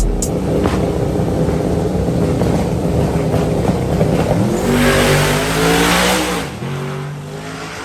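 Truck engine running loudly; about four and a half seconds in it revs up, holds briefly, then drops back to a lower, steady idle about six and a half seconds in.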